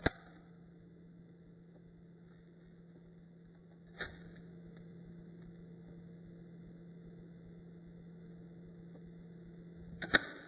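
Zippo lighter lid clicking: a sharp metallic snap at the start, another about four seconds in, and a quick double snap near the end, over a steady electrical hum.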